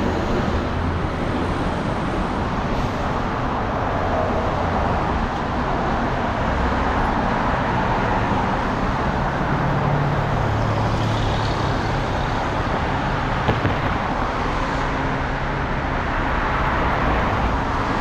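Road traffic on a city street: cars passing and engines running, a steady wash of tyre and motor noise.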